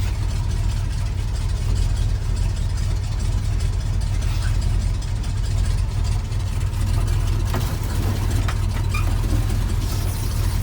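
1978 Ford F350's 460 big-block V8 idling steadily, running smoothly.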